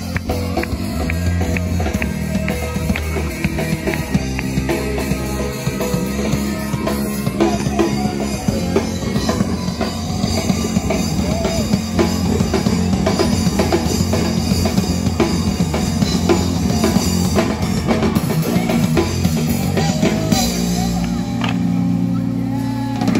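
Live rock band playing, with a drum kit keeping a steady beat under the guitar.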